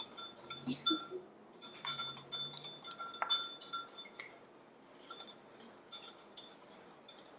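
Hand whisk clinking rapidly against a mixing bowl while egg white is beaten for royal icing, with light metallic ticks that ring briefly. The clinking is busiest in the first few seconds and then thins out.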